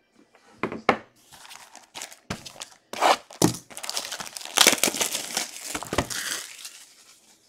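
Plastic shrink-wrap on a Bowman baseball card box being torn and crinkled off by hand, with several sharp knocks as the box is handled.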